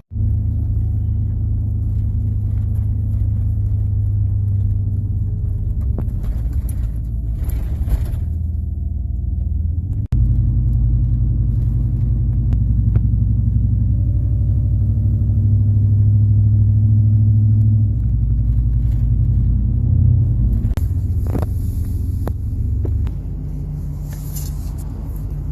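Motor vehicle driving: a steady low engine and road rumble that shifts in pitch and level several times, with a brief break about ten seconds in.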